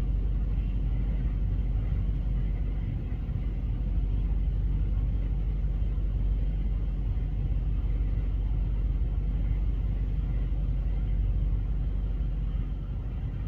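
Steady low rumble with a faint hiss above it, unbroken throughout.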